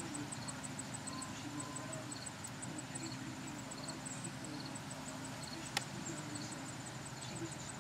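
An insect chirping in short, even pulses, about four to five a second, over a steady low background hum, with one sharp click about six seconds in.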